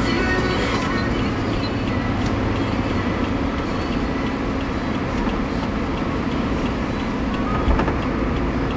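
Steady road and engine noise of a car driving at highway speed, heard from inside the car, with a single brief knock near the end.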